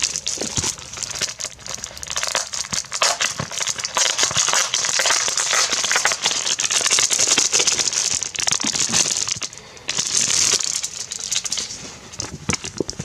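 Plastic packaging bag crinkling steadily as it is handled and opened and a plastic clear file is pulled out, with a short lull near the end before more crinkling.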